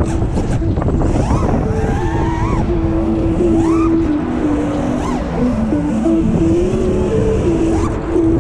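5-inch FPV freestyle quadcopter's brushless motors and props (T-Motor Velox 2207 1750kv, HQProp Ethix S4) whining in flight, the pitch gliding up and down with each throttle punch and settling into steady tones between moves, over a constant low rumble.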